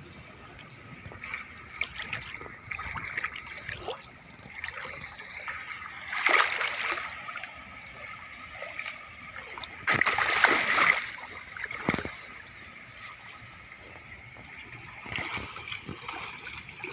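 Shallow water splashing and gurgling, with two louder bouts of splashing about six and ten seconds in.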